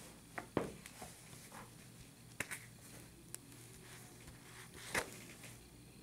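Faint steady low hum with a few soft clicks and taps: a pair about half a second in, one around two and a half seconds, and a slightly louder one near five seconds.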